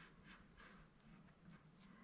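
Near silence, with faint, soft, irregular rubbing as a fingertip smears and presses soft filler into a gap on plywood.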